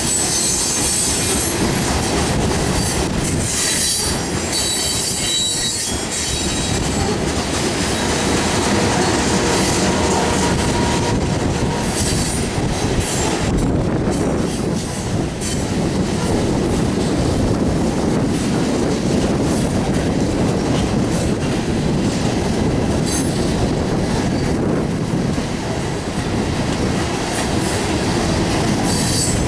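Loaded coal hopper cars rolling past, steel wheels clicking over the rail joints under a continuous rumble, with high-pitched wheel squeal in the first few seconds.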